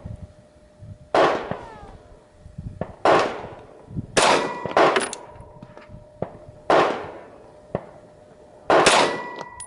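Glock 40 10mm pistol fired about six times at an uneven pace, one to two seconds apart, each shot sharp and loud. A faint steady ringing tone hangs on after several of the shots.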